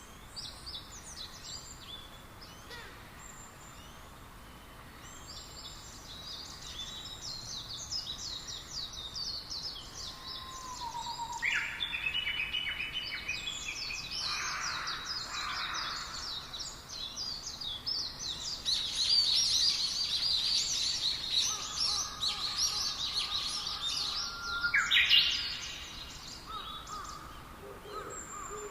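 A chorus of small birds chirping, many short, quick calls overlapping. It is sparse at first, grows denser and louder through the middle, and is loudest with a burst of calls about 25 seconds in.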